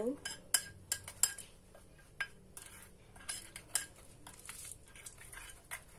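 Metal spoon stirring a thick turmeric-and-egg paste in a ceramic bowl, clinking irregularly against the bowl's side, some strikes with a brief ring.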